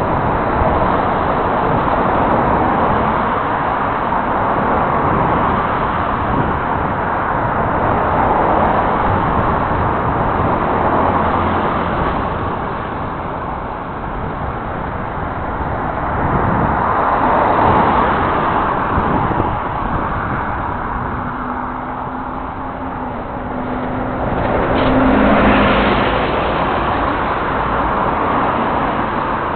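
Steady rush of wind and road noise while riding a bicycle along a road, with motor traffic passing. The noise swells and fades as vehicles go by, and an engine hum rises with the loudest pass near the end.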